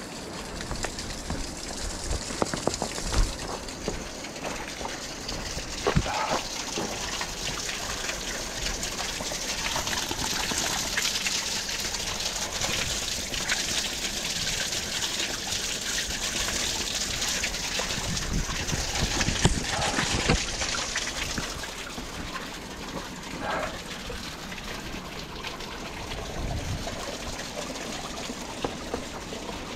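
Small waterfall on a jungle stream: a steady rush and splash of falling water, louder for a while in the middle. A few short knocks sound over it.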